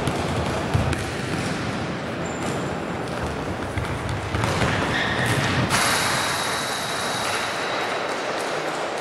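Echoing sports-hall din of indoor futsal play: a steady noisy wash with a few sharp knocks of the ball being kicked, the loudest about a second in.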